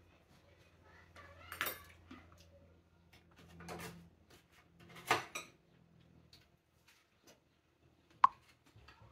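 Metal spoon scraping on a plate while scooping cream, three soft scrapes, then one sharp ringing clink of the spoon against the dish near the end.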